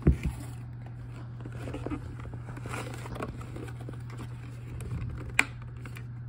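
Handling of a toy playset's box and packaging: a sharp knock at the start, then light rustling and scraping, and a single sharp click about five seconds in, over a steady low hum.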